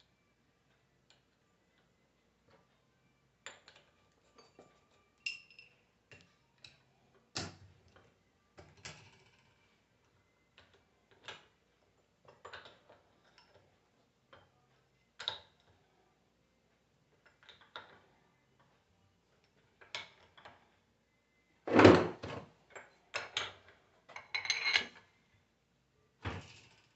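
Scattered clicks, clinks and knocks of metal alternator parts and hand tools being handled during reassembly, with a cluster of louder knocks about three-quarters of the way through.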